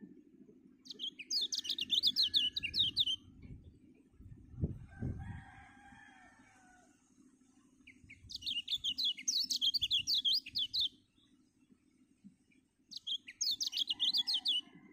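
White-eye (kecial) singing in three bursts of rapid, high twittering notes: just after the start, about 8 seconds in, and near the end. Between the first two bursts there is a fainter, lower pitched call and two low thumps.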